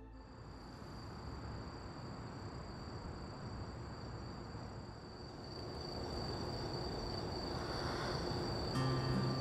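Crickets trilling steadily in one high, unbroken tone over a low hum of evening outdoor ambience, growing a little louder in the second half.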